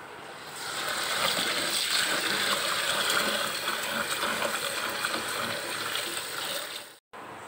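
Tap water pouring into a plastic bowl of soaked glutinous rice while a hand swishes the grains to rinse them. A steady rush of water that starts about half a second in and cuts off abruptly just before the end.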